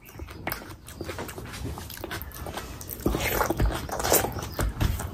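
Close-miked chewing and wet mouth sounds of a person eating chicken biryani with her hand, growing louder about three seconds in as a fresh handful goes into her mouth.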